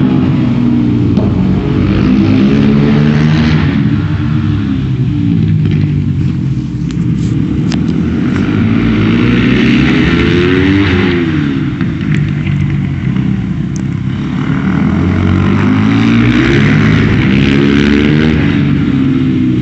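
Supermoto motorcycle engine being ridden hard, its pitch climbing under acceleration and dropping off under braking several times over, as through a series of corners.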